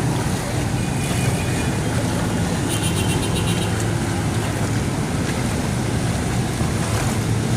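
Heavy rain falling, a steady, even hiss with a low rumble underneath.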